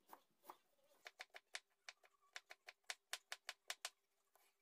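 Chef's knife chopping onion on a plastic cutting board: a quick run of light, sharp knocks, several a second, thickest from about one to four seconds in.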